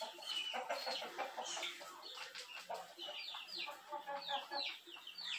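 Chickens clucking, with small birds chirping over them in many quick downward-sliding chirps.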